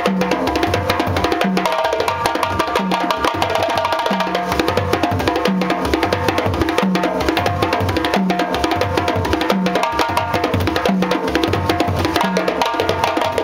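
Djembe ensemble playing a fast, dense rhythm: a lead djembe soloing over hand-played accompanying djembes, with a low drum note recurring about every second and a half.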